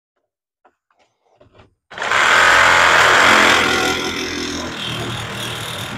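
A handheld power cutting tool cutting the factory grille out of its housing. After a few light clicks it starts about two seconds in and runs continuously, loudest at first and easing a little toward the end.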